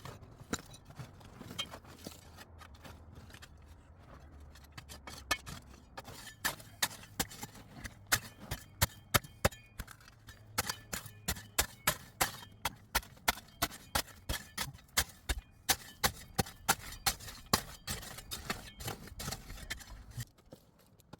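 Repeated sharp blows of a hand tool, about two a second, starting about six seconds in and stopping shortly before the end, with lighter knocking and scraping before them.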